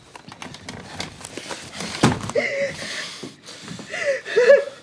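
Quiet handling sounds, small clicks and rustles, with a single thump about two seconds in and a few short pitched vocal sounds near the middle and end.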